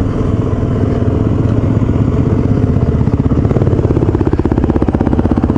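Suzuki DR-Z400's single-cylinder four-stroke engine coming off a slow roll and settling into idle, with an even, rapid thump from about halfway in.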